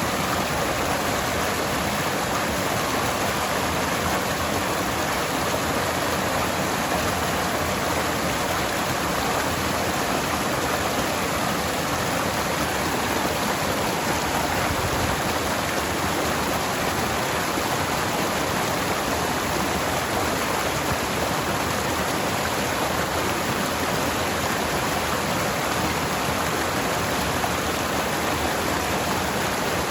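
Forest stream flowing steadily over rocks, a continuous rushing and splashing of water.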